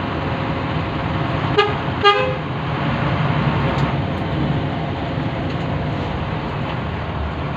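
Bus horn giving two short toots about half a second apart, roughly a second and a half in, over the steady running drone of the bus heard from inside.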